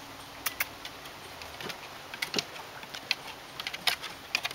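Golden retriever's claws clicking and paws tapping on wooden deck steps as it walks down them, in irregular taps that come faster near the end.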